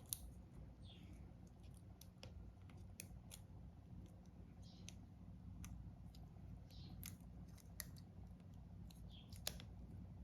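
Faint, irregular small clicks and ticks with a few brief soft scrapes, the sound of small tools and tiny phone parts being handled during a smartphone repair, over a steady low hum.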